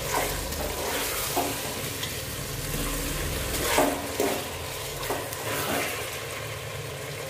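Diced potatoes, onions and green chillies sizzling in hot oil in a metal pot, with a metal spoon scraping and knocking against the pot now and then as they are stirred to mix in the salt.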